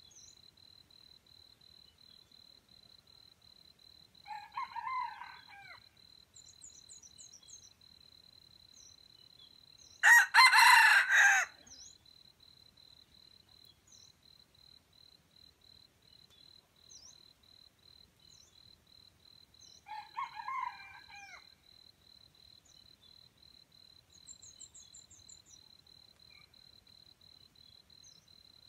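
Wild junglefowl rooster crowing once, loud and short, about ten seconds in. Fainter crows come from farther off, once before and once after. Under them runs a steady, even insect trill, with a few small bird chirps.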